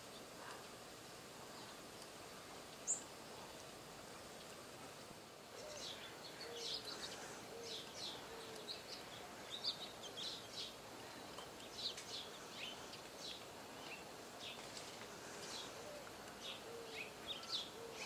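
Faint bird chirping: steady faint hiss at first, then from about five and a half seconds in a scatter of short high chirps, with soft short low notes among them.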